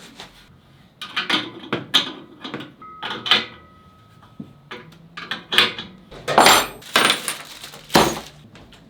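Irregular knocks, clinks and rattles of metal wood-lathe parts and hardware being handled and fitted together, with a brief ringing tone about three seconds in.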